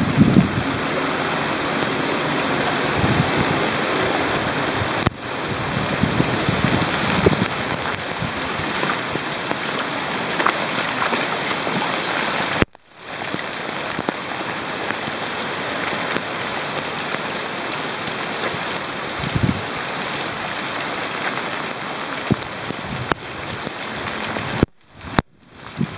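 Heavy rain pouring onto pavement, a steady hiss that cuts out briefly about halfway through and twice near the end.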